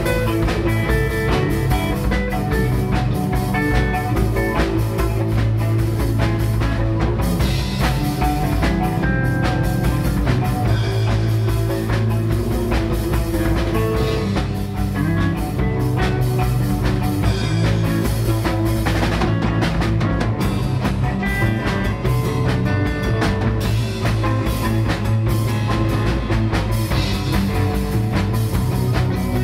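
Rock band playing, with a drum kit keeping a steady beat under sustained guitar and bass notes.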